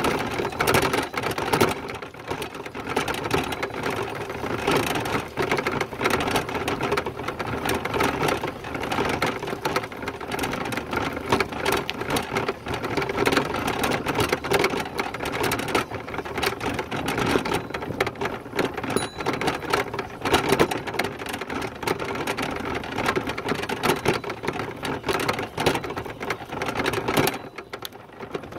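A bicycle rattling and clicking steadily as it is ridden: a dense, fast clatter over a rushing noise, which eases off briefly near the end.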